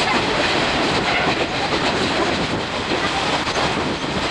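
Running noise of a moving passenger train, heard from inside one of its coaches: a steady rumble with the clatter of wheels over the rails.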